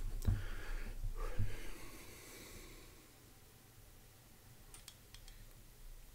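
A man's heavy breaths through the nose, then a few light clicks as a glass hot-sauce bottle is tipped over a metal spoon.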